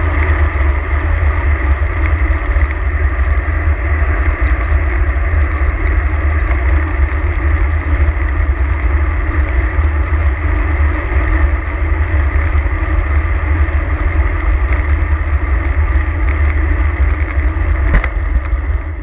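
Steady wind buffeting on a bike-mounted action camera's microphone, mixed with the rumble of road-bike tyres on tarmac. A sharp knock comes near the end.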